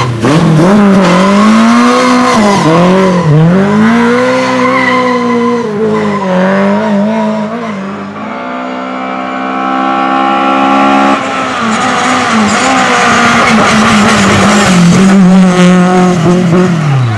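Rally car engine at high revs on a stage run, its pitch repeatedly climbing and dipping as the driver shifts gears and lifts off. In the middle it holds a steadier note for a few seconds before pulling hard again, and it drops sharply in pitch at the very end.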